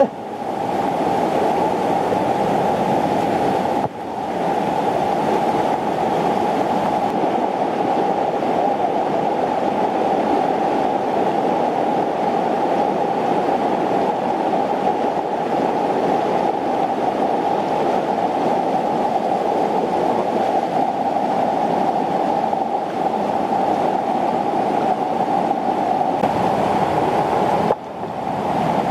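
Fast shallow river rushing over rocks, a loud steady rush of whitewater, with two brief dips: one about four seconds in and one near the end.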